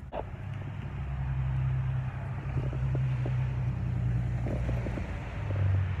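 A steady low motor hum, like a vehicle engine running, that drops slightly in pitch near the end, with a few faint ticks.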